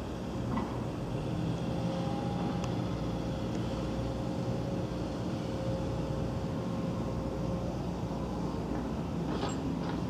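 Steady low outdoor rumble with a faint steady hum, and one short click near the end.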